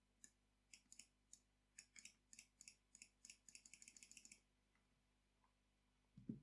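Faint clicks, scattered at first, then a quick even run of about ten a second for about a second: a computer mouse's scroll wheel ticking through a long file. A soft thump comes near the end.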